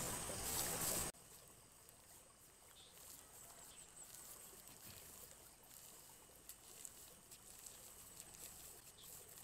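A steady noisy hiss that cuts off abruptly about a second in, then faint crinkling and rustling of a plastic seedling polybag being squeezed in the hands to loosen a chili seedling.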